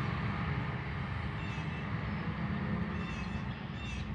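A steady low rumble and hum, with a few short, faint high chirps about a second and a half, three and four seconds in.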